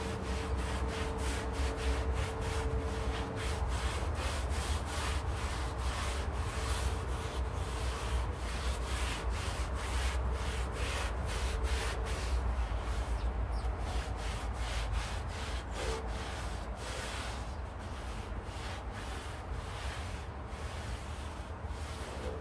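Rhythmic back-and-forth rubbing strokes, about two to three a second, with brief pauses, over a low steady rumble.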